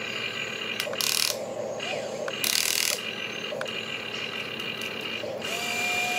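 Electric motors and gearboxes of a Huina RC excavator whining as it digs into sand, curls its bucket and lifts its boom. Two brief louder rushes of noise come about one and two and a half seconds in, and a steadier tone near the end.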